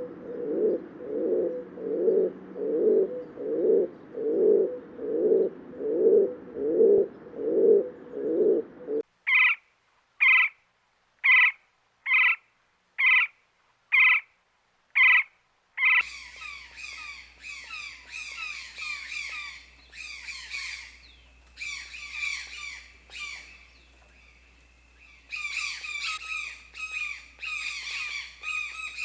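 Bird calls in three stretches. First come low calls repeating roughly twice a second for about nine seconds. Then seven short, evenly spaced high calls, and from about sixteen seconds in a dense, overlapping run of high chirps over a faint low hum.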